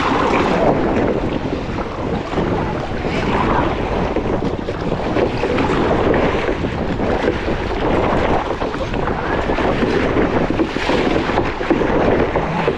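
Wind buffeting the microphone over water splashing and slapping against a plastic sit-on-top kayak as it is paddled through choppy ocean chop, the sound surging unevenly.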